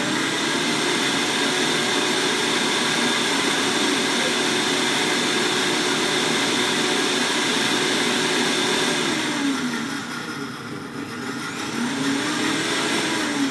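Instant Ace countertop blender motor running loud and steady while blending a thick cilantro-lime dressing. The motor winds down about nine seconds in, speeds up again, and winds down once more near the end.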